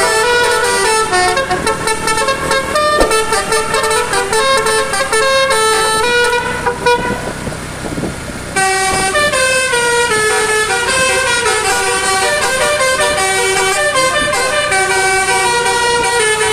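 Telolet basuri melody air horns on a car play a tune of stepped, held notes. About six and a half seconds in, the tune breaks off for roughly two seconds, leaving only a rushing noise, and then starts again.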